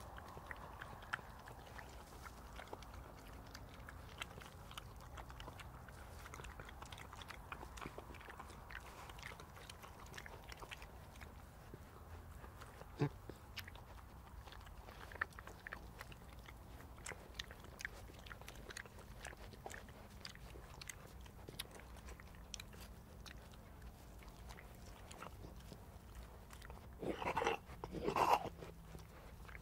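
European badgers eating in grass: many small crunching and chewing clicks. Near the end come two louder bursts of choking and coughing from an old badger whose throat is blocked by tumours.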